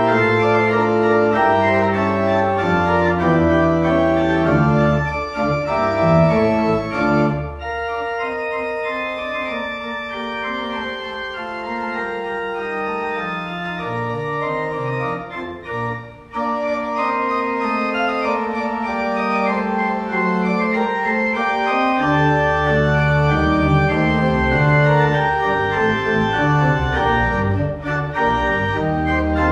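Pipe organ playing sustained chords. The deep pedal bass drops out about a quarter of the way in and comes back near the end, while the upper voices carry on.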